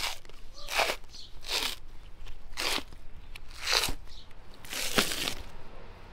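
Thin membrane being peeled by hand off the bone side of a raw rack of ribs: six tearing strokes, roughly one a second.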